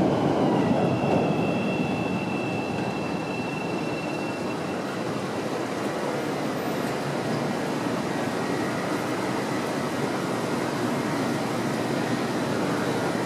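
Chicago 'L' rapid-transit train of Bombardier 5000-series cars running on the elevated steel track. Its rumble fades over the first two seconds, a thin high wheel squeal sounds from about a second in for some three seconds, and a steady rumble goes on after.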